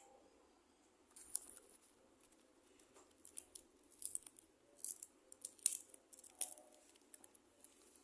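Paper being handled: faint, irregular crinkling and small snipping clicks, like paper pieces being cut and moved about.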